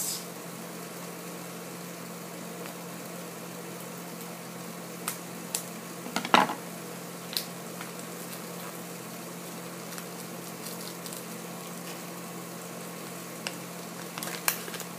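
Steady low hum and hiss of room noise, with a few short crinkles and snips as a small foil blind-bag packet is cut open with scissors and handled. The loudest crackle comes about six seconds in, with a few more near the end.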